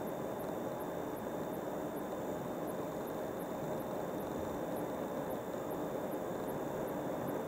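Steady road and engine noise of a car driving along a highway, with a faint high ticking about two or three times a second.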